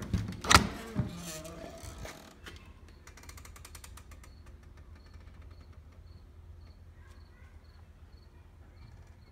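A door creaking on its hinges and knocking shut twice in quick succession, with a short rattle of clicks a moment later. After that come faint high chirps, about two a second, over a low steady rumble.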